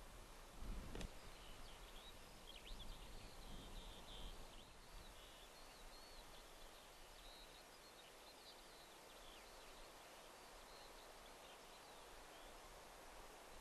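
Faint birdsong, many short high chirps and trills, over quiet open-air background noise, with a brief low rumble about a second in.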